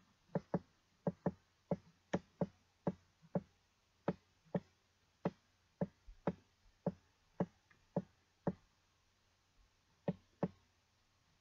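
Computer mouse clicking: a run of sharp single clicks, about two to three a second, as the page is scrolled, then a short pause and two more clicks near the end.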